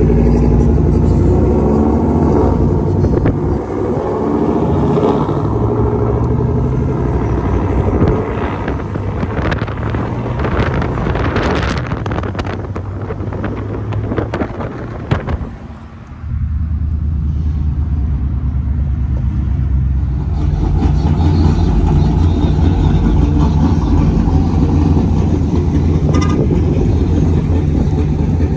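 Road and engine noise from a car driving on a street. After a sudden cut about 16 seconds in, pickup truck engines run steadily at low speed.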